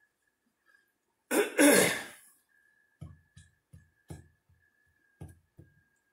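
A man coughs and clears his throat in two loud bursts about a second in, then come several soft low taps, about three a second, in two short runs.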